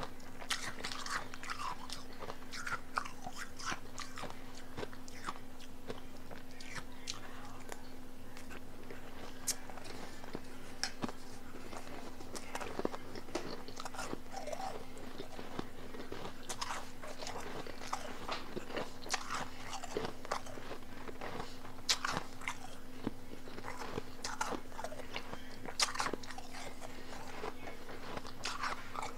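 Close-miked crunching and chewing of powdery blender-crushed ice, with irregular crisp crunches all the way through.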